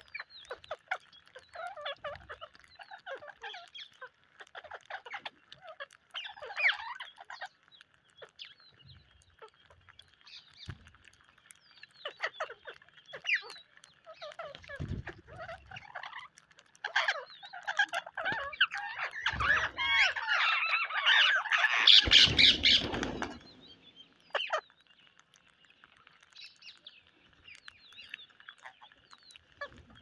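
A flock of rose-ringed parakeets giving many short chirps and squawks while feeding, swelling a little past the middle into a loud stretch of overlapping screeching calls.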